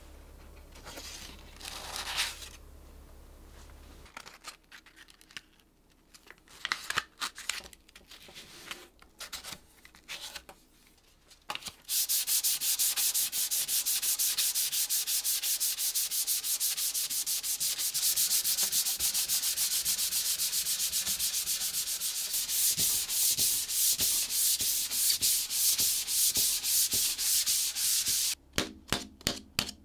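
Wooden furniture surface being hand-sanded with a sheet of sandpaper under the fingers. At first there are light, scattered rubs. From about twelve seconds in come steady, fast back-and-forth strokes, which break into a few separate strokes near the end.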